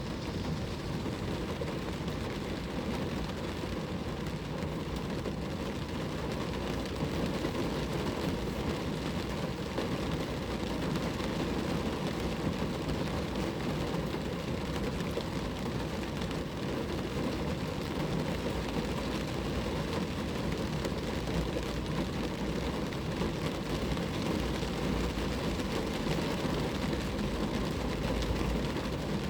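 Steady rain falling on a car, a continuous even patter.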